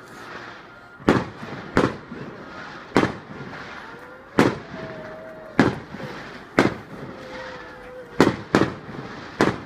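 Firework shells bursting: about nine sharp bangs at uneven intervals, two of them close together near the end, with a faint whistling tone between some of the bangs.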